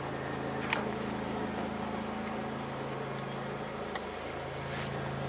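Lawn mower engine running steadily, a low even hum. Two short clicks, one about a second in and one near four seconds.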